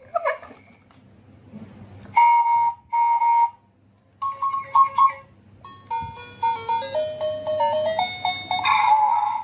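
Electronic beeps and a short synthesized jingle: two long beeps, a quick trill of notes, then a plain stepping melody that ends in a held tone near the end.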